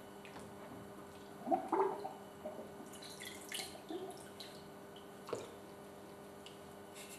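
Faint water sloshing and dripping as hands move soaked bisque-fired porcelain doll pieces and a sponge in a plastic bowl of water. Small splashes come in scattered bursts, with a light knock about five seconds in.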